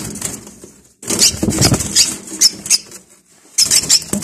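Young lovebird flapping its wings in a cage as a hand reaches in to catch it: two bursts of rapid fluttering, one of about two seconds starting a second in and a shorter one near the end.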